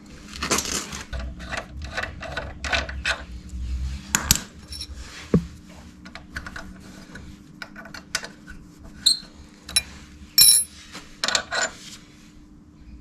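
Metal tools and brake parts clinking and scraping by hand on a motorcycle's front brake caliper, in irregular knocks, with a few sharp ringing metallic clinks about nine to eleven seconds in.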